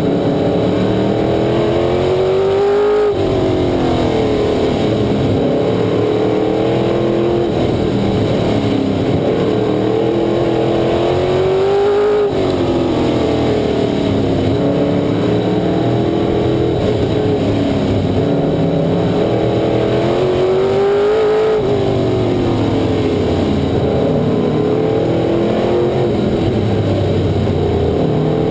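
Race car engine heard onboard at racing speed. Its pitch climbs, then drops off sharply about every nine seconds as the throttle comes off for a turn, with smaller dips and rises in between.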